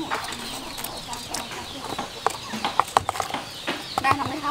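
Short clucking animal calls with a few sharp clicks and knocks, the loudest knocks about three seconds in.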